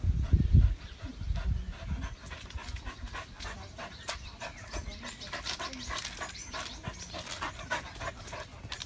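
A dog panting, with scattered short ticks and rustles. A few heavy low thumps come in the first second.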